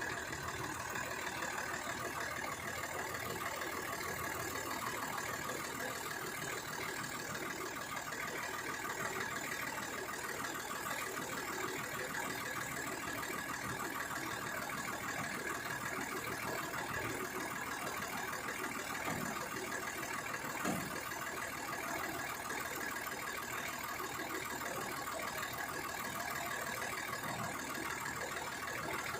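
Engine of a truck-mounted rice threshing machine idling steadily, with one brief knock about two-thirds of the way through.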